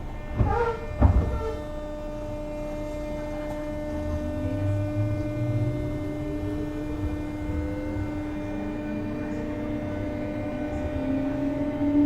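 Inside a JR West 201 series thyristor-chopper electric train on the move: a steady electrical hum with overtones, and a whine that rises in pitch from about four seconds in and again near the end. Two sharp knocks sound about half a second apart near the start.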